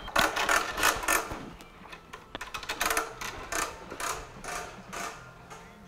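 Retractable air-hose reel paying out as the hose is pulled from it, its ratchet clicking in quick, irregular runs, densest in the first second.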